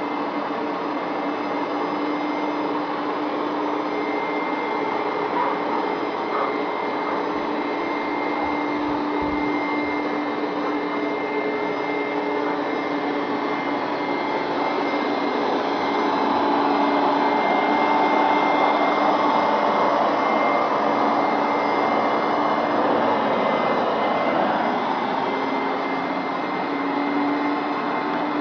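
Hoover Max Extract carpet cleaner running steadily: its motor whines and draws suction as it is pushed across a rug. The sound gets somewhat louder a little past the middle.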